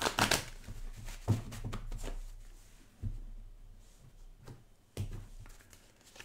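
Tarot cards being handled and dealt out onto a woven cloth mat: a short rustle of the deck at the start, then scattered soft taps and slides as the cards are laid down one by one.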